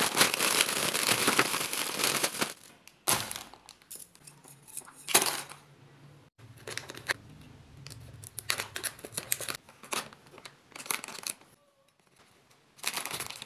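Plastic snack wrappers crinkling and rustling as packets are handled and put down on a hard table: a loud continuous spell for the first two and a half seconds, then short separate bursts. A faint low hum runs under the middle part.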